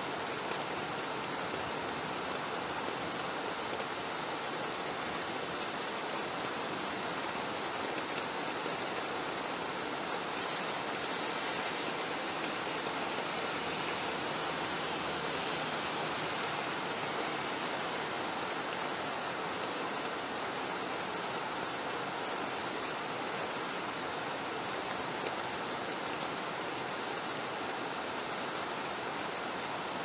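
Steady rain, an even hiss with no distinct drops, thunder or other sounds.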